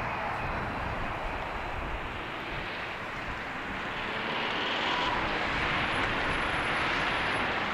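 Jet airliner engines, a distant steady rushing roar that grows a little louder about halfway through.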